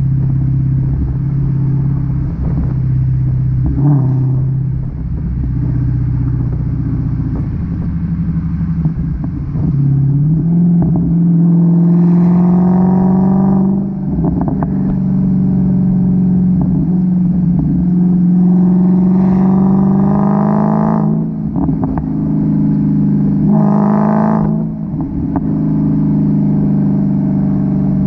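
2016 Dodge Challenger SRT Hellcat's supercharged 6.2-litre V8 through its stock exhaust. It runs steadily, then picks up speed and gets three bursts of throttle, about 12, 19 and 24 seconds in. Each burst cuts off sharply as the throttle is lifted, and the exhaust crackles and pops on deceleration.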